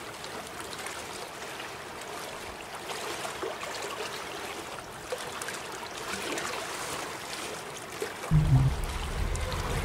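Choppy lake water lapping at the shore, an even rushing noise. Background music comes in about eight seconds in.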